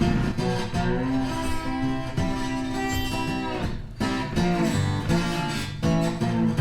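Background music led by guitar, with plucked and strummed notes.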